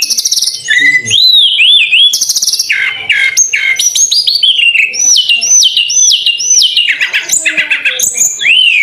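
A bird singing loudly, a varied run of swooping whistles, chirps and fast rattling trills. About halfway through it repeats one swooping whistle four times in a row.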